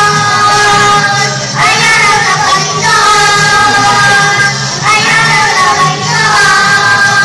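A group of young children singing a Tagalog children's praise song together over musical accompaniment, in sung phrases a second or two long.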